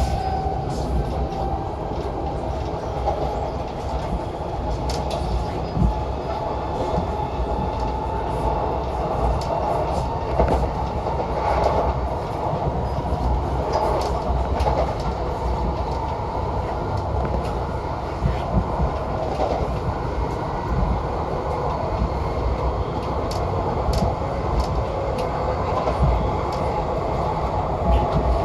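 Class 357 Electrostar electric multiple unit running along the line: a steady low rumble with scattered clicks of the wheels passing over rail joints.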